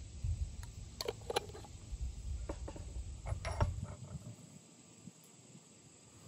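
Scattered clicks and light knocks of handling: a small glass jar and a fire steel being set down on a weathered wooden bench, a few sharp taps in the first four seconds. A low rumble underneath drops away about four seconds in.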